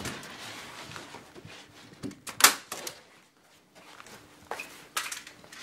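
Synthetic roofing membrane rustling and crackling as it is handled, pressed and folded into place behind a board, with one sharp snap about two and a half seconds in and a few lighter clicks near the end.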